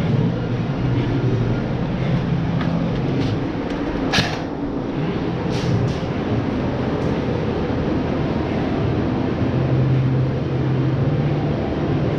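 A steady low rumble, with a handful of sharp clicks and knocks scattered through it, the loudest about four seconds in.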